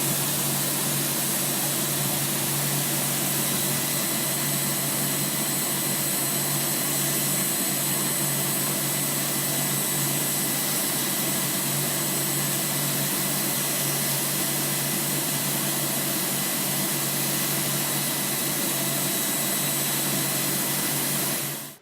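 A steady, loud electric motor running with a strong hiss and a faint high whine, which cuts off suddenly near the end.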